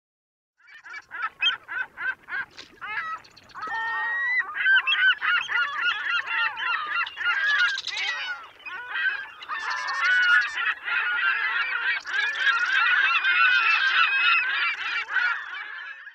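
A flock of birds calling: a few separate calls at first, then from about four seconds in many voices overlapping in a dense, continuous chorus.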